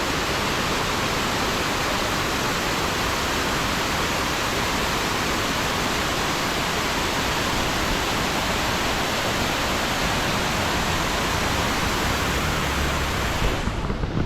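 Diyaluma Falls, a 220 m waterfall, falling steadily: an even, unbroken rush of water that changes abruptly just before the end.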